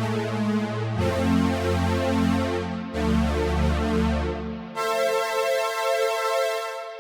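Akai AX60 analog synthesizer playing sustained, harmonically rich chords with reverb and delay. The bass note changes twice, then drops out about two-thirds of the way through, leaving a higher held tone that fades at the end.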